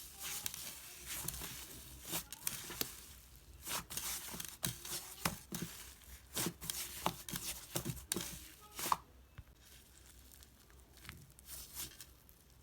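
Cloud slime being stretched and pulled apart by hand: irregular soft tearing and crackling with sharp little pops, thinning out over the last few seconds.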